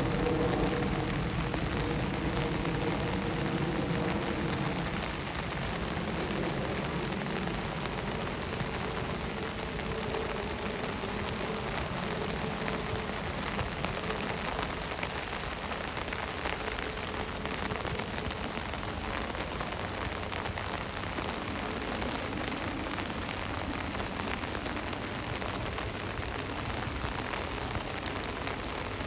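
Steady rain falling on a wet street, an even hiss. Under it a low steady hum is heard for the first few seconds, fading out.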